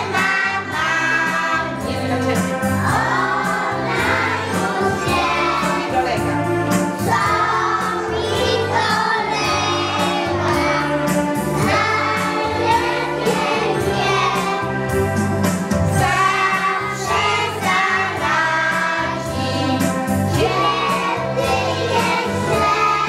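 A group of young children singing together with musical accompaniment that has a steady, repeating bass line.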